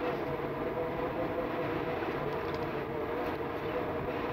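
A steady mechanical hum with a constant faint tone, unchanging throughout.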